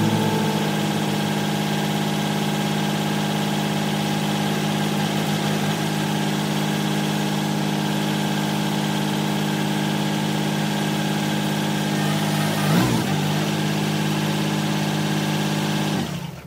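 Kioti CK3510 compact tractor's diesel engine idling steadily, with a brief change in tone about thirteen seconds in. It cuts off abruptly just before the end.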